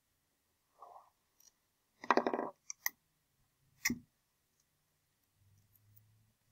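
Dry-erase marker writing on a whiteboard: a faint scrape, then one short pitched squeak about two seconds in and a few light ticks. A single sharp click follows near the four-second mark.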